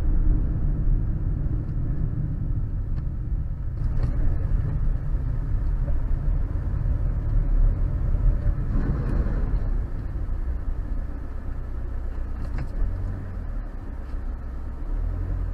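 Steady low rumble of a car driving at highway speed, recorded by its dashcam: engine, tyre and wind noise, with a couple of faint ticks.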